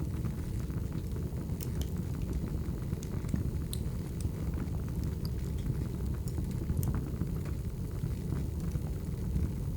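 Wood fire burning: a steady low rumble with scattered sharp crackles and pops.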